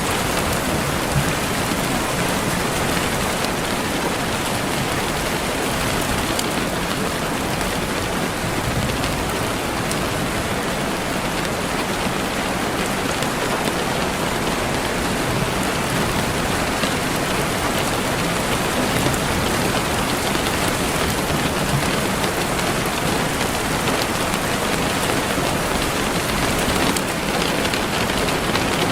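Steady rain falling on a surface, an even hiss of dense drops with no change in strength.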